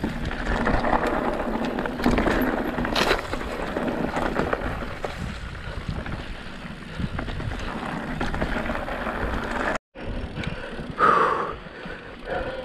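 Mountain bike rolling down a dirt trail: tyres on loose ground and the bike rattling, with wind buffeting the microphone. The sound cuts out for a moment near ten seconds in, and there is a short louder burst just after.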